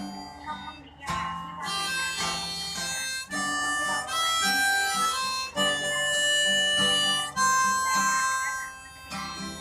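Harmonica playing a melody of held notes in short phrases over guitar accompaniment: the instrumental introduction of a song.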